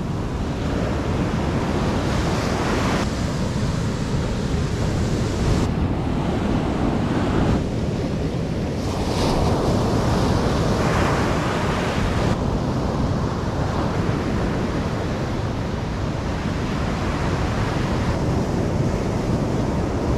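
Ocean surf breaking on a beach, a steady rush of waves with wind on the microphone. The sound shifts abruptly a few times.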